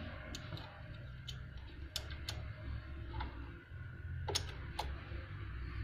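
Scattered small clicks and taps, about eight of them at uneven intervals, as hands work at a portable sewing machine's thread-tension assembly and pull out a broken thread, over a low steady hum.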